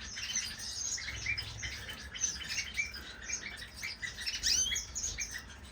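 Small cage birds chirping: many short, high chirps a few times a second, with a brief rising-and-falling whistle about four and a half seconds in.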